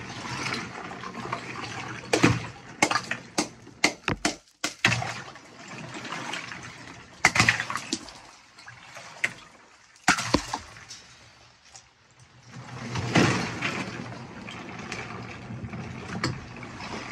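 Water sloshing and ice chunks knocking about in a chest freezer filled as an ice bath, broken by sharp cracks and knocks as a claw hammer breaks up the ice: a quick run of them about two to five seconds in, and single ones at about seven and ten seconds.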